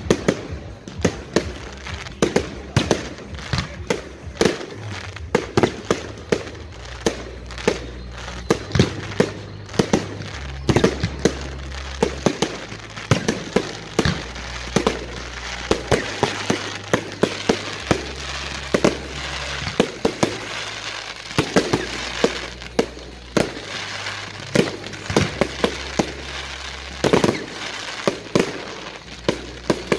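Fireworks display: aerial shells bursting in quick succession, roughly two or three bangs a second, over continuous crackling, with one especially loud bang near the end. Low sustained tones shift in steps underneath.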